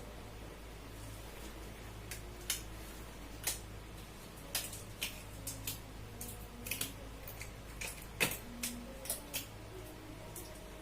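Irregular light clicks and knocks of small medical equipment being handled and set down, about a dozen, the sharpest about eight seconds in, over a steady low hum.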